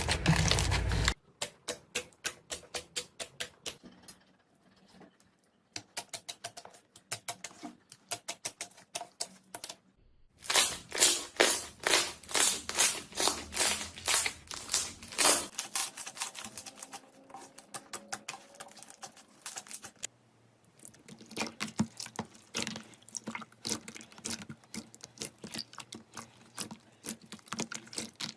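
Slime being pressed, poked and stretched by hand, giving rapid trains of small clicks and pops as air pockets burst, in several bursts broken by short pauses.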